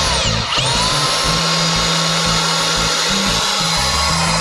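Milwaukee M18 Fuel 18 V deep-cut band saw whining as its trigger is worked through a clamped-on lever. The motor winds down at the start, spins back up about half a second in and runs steadily at speed, then winds down near the end as the lever is let go.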